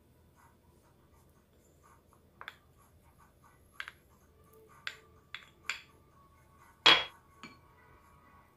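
Scattered light clinks and taps of utensils and small dishes against a white ceramic bowl while a soy-sauce seasoning is mixed, about seven in all, the loudest a sharp clink near the end.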